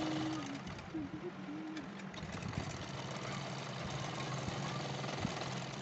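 Sewing machine running steadily as it stitches a seam along a strip of cotton fabric.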